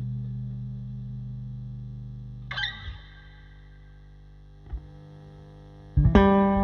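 Electric guitar through a Bad Cat Classic Pro 20 Reverb combo amp, a 6V6 valve amp with a 12-inch speaker. A chord rings out and fades, with a brief strum about two and a half seconds in. A pause with faint amp hum follows, then new warm jazz-tone notes on a Gibson ES-335 start near the end.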